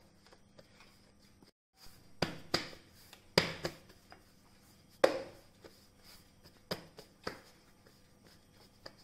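Hands pressing and patting soft pizza dough flat on a cornmeal-dusted metal board: about six scattered soft taps and thumps, the loudest about five seconds in.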